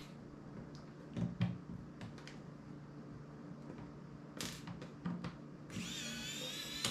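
Electric precision screwdriver whirring as it turns a small phone screw, starting near the end with its pitch rising. Before that, a few light clicks and taps of the tool and parts being handled.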